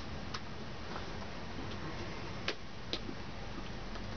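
Light, irregular clicks and taps of hands meeting while signing, about six in all, the sharpest about two and a half seconds in, over steady room hiss.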